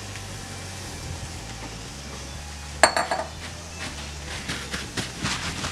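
Metal spoon clinking sharply against a stainless steel pot about halfway through, with a brief ring, then a run of smaller clicks and scrapes as sliced mushrooms are stirred in the pot, over a faint steady sizzle of the frying pan contents.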